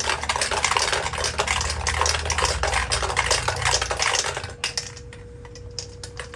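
Rapid metallic scraping and clicking as a spray paint can's metal is worked and torn open with tools, stopping about four and a half seconds in, followed by a few separate clicks.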